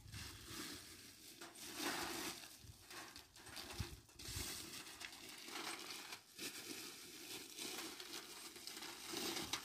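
Raw cashew nuts being poured out of a plastic bag onto a rusty perforated metal sheet, the bag crinkling and the nuts rattling onto the metal in irregular spills.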